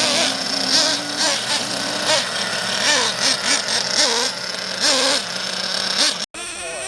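Small nitro RC truck engine idling with a string of short throttle blips, its pitch jumping up and falling back about once or twice a second. Just after six seconds it cuts out for an instant, and a steadier engine note follows that slowly rises.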